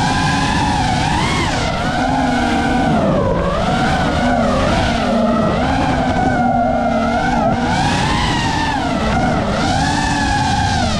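FPV racing quadcopter's electric motors and propellers whining loudly, the pitch rising and falling constantly with the throttle as the drone swoops and banks, over a steady rush of prop wash.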